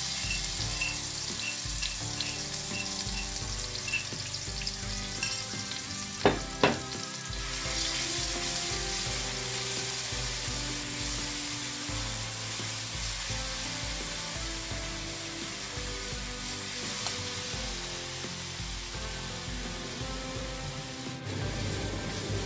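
Pounded spice paste of shallot, garlic and candlenut sizzling in hot oil in a wok as it is stirred with a silicone spatula. Two sharp knocks about six seconds in.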